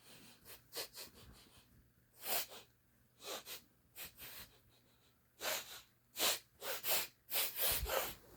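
Lion cub sniffing: a string of short, breathy sniffs and snorts, spaced out at first and then quicker and louder over the last three seconds.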